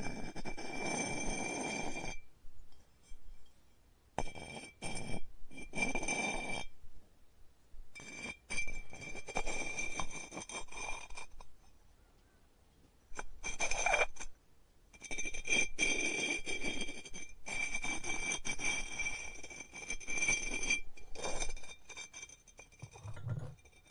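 Electric pottery wheel whining steadily, with rough rubbing noise from the clay beneath it. The sound comes in several stretches that start and stop abruptly, with brief near-silent gaps between them.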